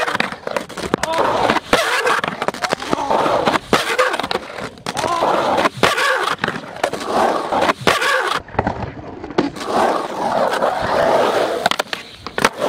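Skateboard wheels rolling over a concrete skatepark surface with a rough grinding rumble, broken by repeated sharp clacks and knocks of the board against the ground.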